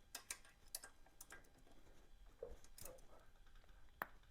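Faint, irregularly spaced clicks and taps of a hand tool on metal as the bolts on the Kawasaki KL250's valve cover caps are tightened in turn; one sharper click about four seconds in.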